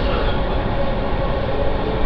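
Metro train running steadily at speed on an elevated viaduct, heard from inside the coach: a continuous rumble of the wheels on the rails and the running gear.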